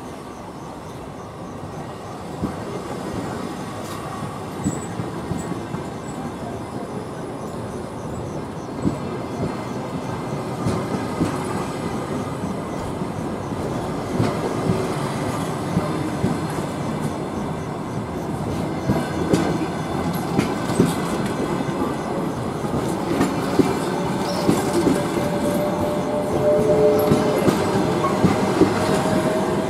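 Passenger coaches of a departing train rolling past and gathering speed, their wheels clicking over rail joints and getting steadily louder. Over the last few seconds a thin, steady wheel squeal joins in.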